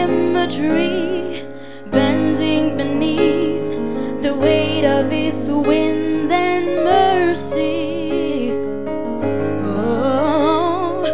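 Female gospel vocal trio singing with vibrato over sustained keyboard chords.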